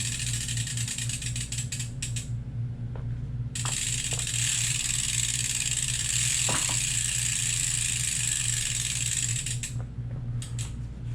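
Bicycle wheel spinning with its freehub pawls ratcheting in a fast buzz, once for about two seconds and then again for about six seconds, over a low steady hum. The wheel is wobbling from a bent brake rotor.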